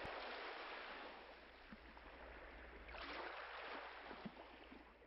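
Sea waves washing onto a beach: two swells of surf about three seconds apart, fading out at the end.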